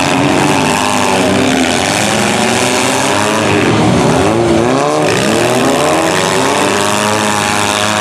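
Several small-car demolition derby engines revving and running at once, their notes overlapping and rising and falling as the cars drive around the arena.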